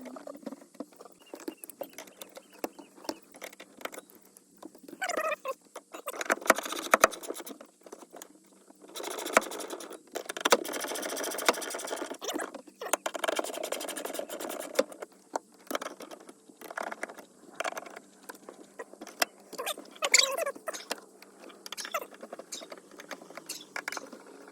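Hands working the plastic interior trim panels of a 2001 Ford Ranger's cab: a scattered run of clicks and knocks, with two longer stretches of scraping and rustling near the middle and a few short squeaks.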